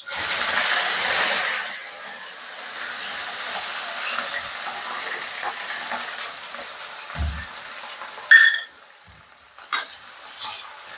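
Chopped onion frying in hot ghee in a kadhai. It goes in with a loud sizzle, which eases after a second or two to a steady sizzle. Knocks and scrapes of a spoon against the pan come through as it is stirred, and the sizzle dips briefly near the end.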